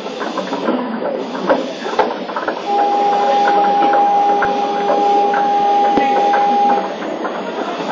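Subway platform departure buzzer sounding a steady tone for about four seconds, starting about three seconds in, signalling that the train is about to leave. Under it, passengers' footsteps and murmuring voices as they leave the train.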